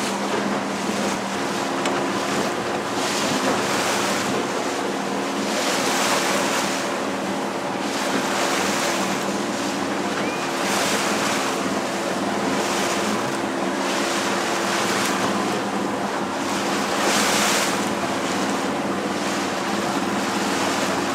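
A small boat's motor running at a steady hum under the rush and splash of water along the hull, with wind buffeting the microphone; the water noise swells every couple of seconds.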